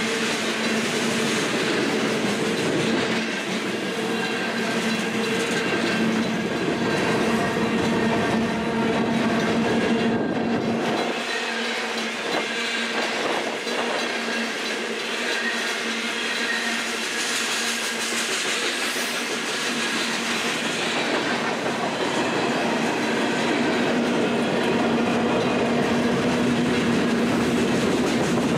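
Long freight train of covered hoppers and tank cars rolling past at speed, its wheels clattering steadily over the rails, with a steady low drone running underneath.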